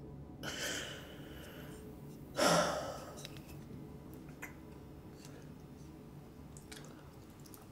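A man breathing heavily, with a breath about half a second in and a loud sighing breath about two and a half seconds in, followed by a few faint clicks.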